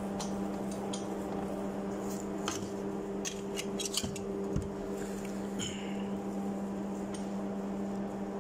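Scattered metal clinks and knocks from handling a steel bench vise and setting a valve part in its jaws, with a cluster of sharp clinks a little before halfway. A steady low hum runs underneath.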